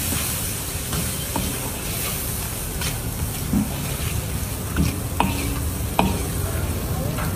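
A steel ladle stirs and scrapes green chillies and ground spices frying in oil in a large wok, over a steady sizzle. The ladle knocks against the pan now and then, about six times.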